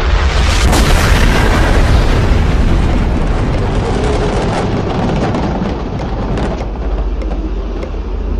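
Explosion sound effect: a loud boom that hits at the start, swells for about a second and dies away slowly over the next several seconds, over a steady low drone.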